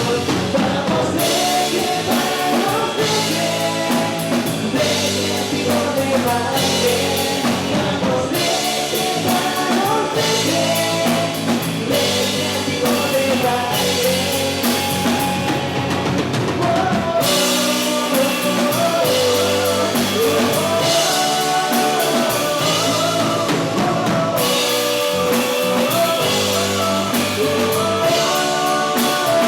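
Rock song with a sung lead vocal over a full band with a drum kit.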